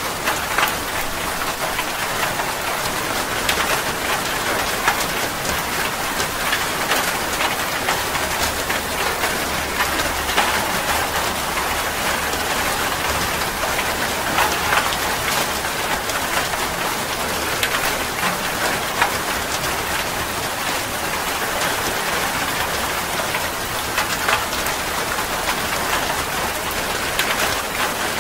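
Heavy rain falling steadily, with many separate drops ticking close by through the hiss.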